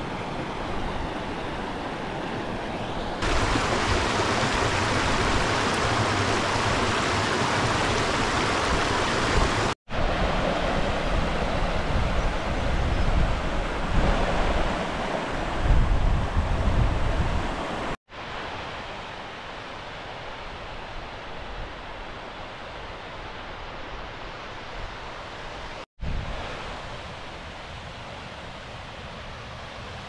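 Rushing water of a rocky mountain stream and waterfall, a steady roar that jumps abruptly in level and tone a few times, with brief dropouts. Through the louder middle part there is extra low, uneven rumble of wind on the microphone.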